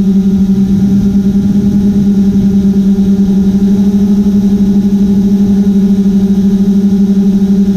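Quadcopter drone's propellers and motors humming at one steady pitch, heard from the camera mounted on the drone.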